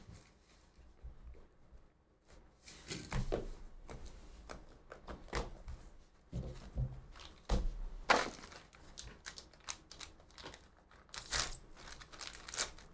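A sealed black cardboard trading-card box being handled and opened by hand: the seal tearing, the lid and foam insert handled, and plastic wrapping crinkling, with scattered sharp clicks and knocks, the loudest about eight seconds in.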